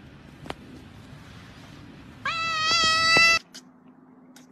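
A domestic cat gives one long, drawn-out meow, an "aaa" that rises at the start and then holds on one pitch for about a second, a little over two seconds in. A faint click comes just before it.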